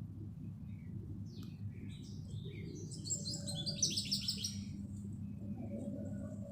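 A small songbird, sold as a 'black sparrow', chirping: a few short scattered chirps, then two quick runs of rapid repeated high notes about three to four and a half seconds in, over a steady low hum.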